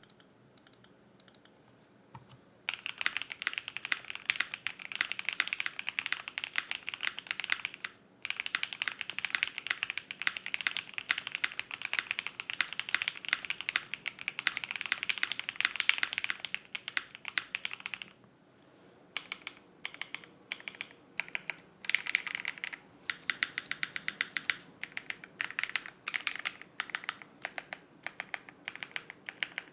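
Typing on a custom Sun68 mechanical keyboard with lubed linear Silk Emerald switches on a POM plate and GMK keycaps: a few lone keystrokes, then fast continuous typing, a brief pause about two-thirds through, and slower, more spaced keystrokes after it.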